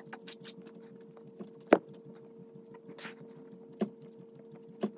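Faint scattered taps and rustles of a person doing push-ups on carpet over a steady faint hum. A sharp tap about two seconds in is the loudest sound, and there is a short breath about three seconds in.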